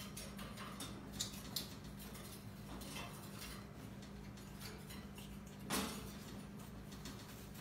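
Raccoons climbing and scrabbling on a wire cage: scattered light metallic clinks and rattles of claws on the bars, with a louder knock about six seconds in.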